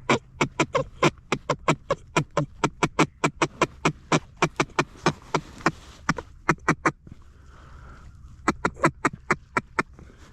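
Mallard duck call blown in a long, fast series of loud quacks, about five a second. It breaks off about seven seconds in, and a shorter series follows near the end.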